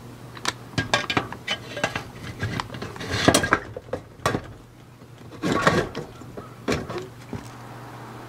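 Wood chips rattling in the metal chip-loader tube of a Masterbuilt electric smoker as the tube is pushed into the side chip port and turned: a run of clinks and scrapes, loudest about three seconds in and again just past halfway.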